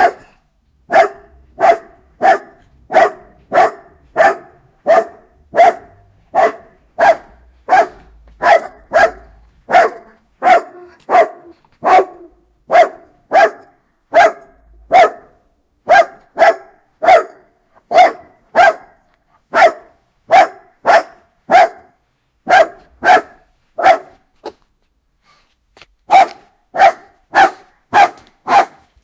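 Guard dog barking aggressively: single sharp barks one after another at a steady pace of just over one a second. The barks stop for about two seconds near the end, then resume.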